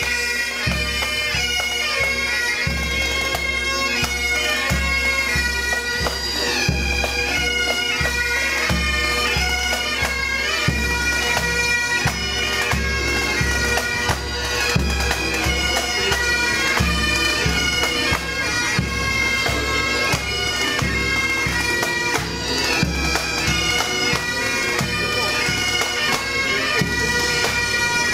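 Pipe band playing Highland bagpipes: a melody over the pipes' steady drone, with a bass drum beating time about twice a second.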